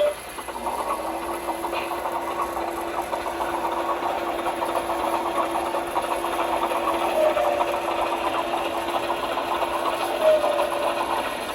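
Small electric motor of a model railroad piece running with a steady whine and a fast, fine gear clatter. It starts about a second in and stops just before the end.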